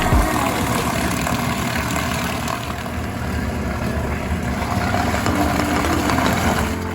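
Portable washing machine running: a steady motor hum with a dense noisy wash over it.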